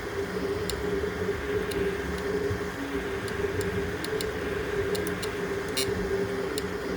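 3D printer running, a steady hum with a few faint ticks.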